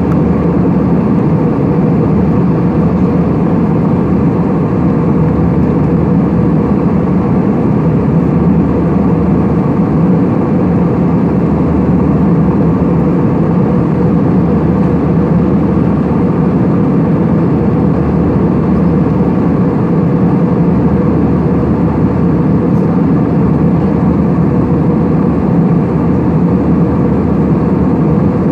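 Steady drone inside a plane's passenger cabin in flight: engine and rushing-air noise, loud and unchanging.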